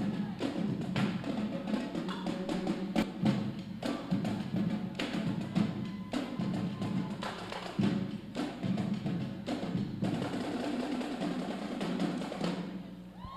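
A high school marching drumline playing a fast, rhythmic drum cadence that breaks off near the end.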